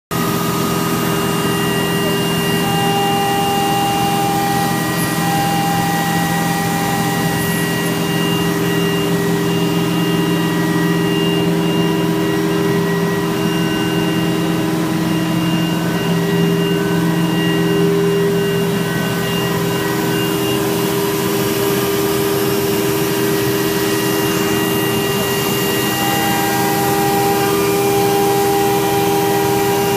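AXYZ CNC router V-grooving dibond aluminium composite panel: the spindle running steadily with several whining tones over a hiss, some tones fading and returning as the cut goes on.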